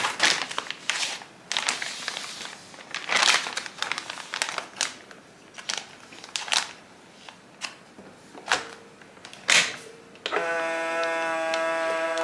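Plastic vacuum-sealer bags crinkling and rustling in irregular bursts as they are handled. About ten seconds in, music with steady held notes starts.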